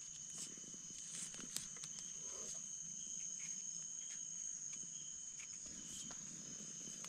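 Insects trilling steadily in a high continuous tone, with soft scraping, clicking and rustling as a knife digs mushrooms out of soil and dry leaf litter.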